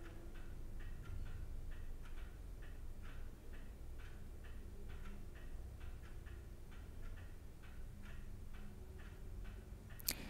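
Faint, steady ticking of an antique wind-up Bim Bam clock's movement, about three ticks a second, with a single sharper click near the end.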